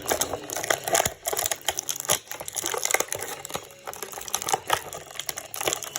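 Plastic action-figure packaging being handled and pulled open: a run of irregular crinkles, clicks and small knocks.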